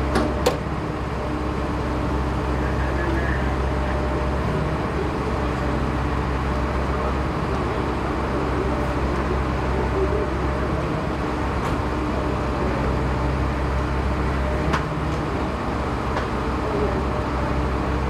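Heavy vehicle diesel engine running steadily with an even low drone, with a few faint clicks over it.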